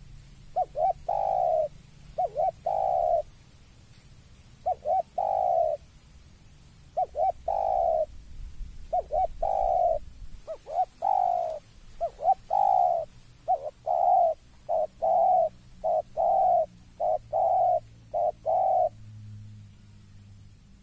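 Spotted dove cooing in repeated phrases. Each phrase is a couple of quick short notes followed by a longer coo. The phrases come closer together in the second half, in the calling this bird gives at the sight of a rival.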